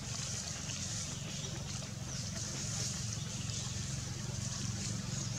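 Steady forest ambience: a continuous low hum with a high, insect-like hiss above it, unbroken throughout.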